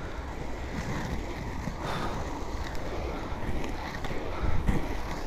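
Three-wheel inline hockey skates rolling over pavement, a steady rumble of the wheels, with wind buffeting the microphone.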